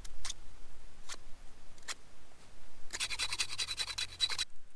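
A knife blade whittling a wooden stick into chopsticks: three single scraping strokes about a second apart, then a fast run of quick scrapes for about a second and a half that stops abruptly.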